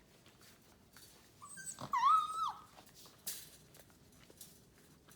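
A five-week-old Labrador puppy gives one wavering whine lasting about a second, starting a little under two seconds in, over light scattered clicks of scuffling.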